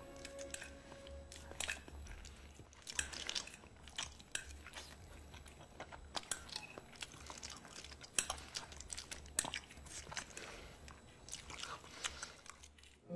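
A man wolfing down spaghetti: wet chewing and smacking, a long irregular string of short sharp mouth noises.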